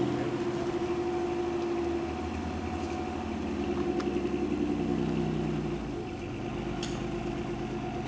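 An engine running steadily, its pitch and tone shifting slightly a couple of times.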